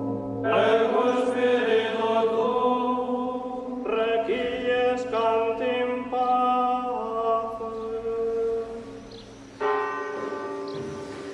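Slow sacred background music: choral voices in a chant-like style holding long sustained chords that change every second or two, with a brief drop in level before a new chord about three-quarters of the way through.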